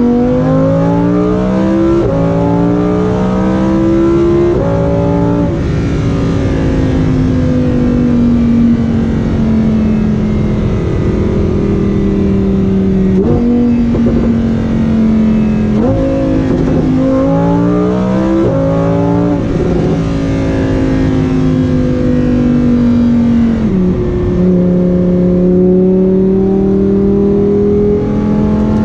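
Lamborghini Huracán Performante's V10 accelerating hard through quick upshifts, its note climbing and dropping sharply at each shift, then holding a steady drone. A second run of quick upshifts comes a little past halfway.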